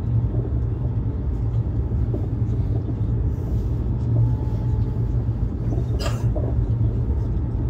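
Steady low rumble of a high-speed train, heard from inside the carriage. One short sharp click about six seconds in.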